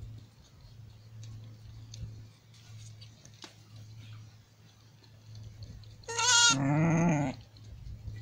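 Dorper sheep bleating once, loudly, about six seconds in: the call starts high and drops to a lower pitch for about a second. A steady low hum sits under it.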